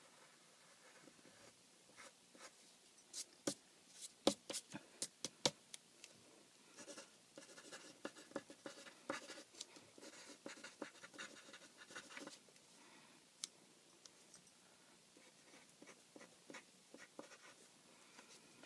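Faint scratching of a graphite pencil writing on paper, with a few sharp ticks early, then several seconds of dense scratchy strokes, thinning to occasional light touches near the end.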